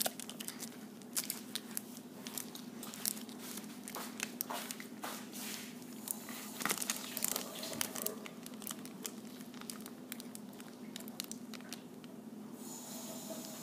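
Chocolate candy wrapper being crinkled and torn open, with irregular crackles that stop near the end, over a faint steady hum.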